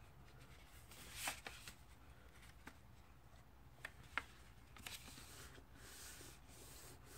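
Faint rustling and soft crinkles of a sheet of paper being folded and creased by hand. The loudest rustle comes about a second in, and two small sharp clicks come around four seconds in.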